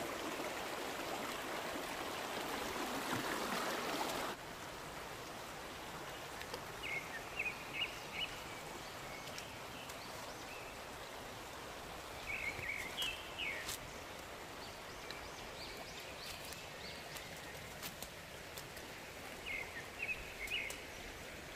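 Shallow stream rippling over stones, cut off abruptly about four seconds in. After that a quieter forest background, with a bird giving short runs of chirps three times.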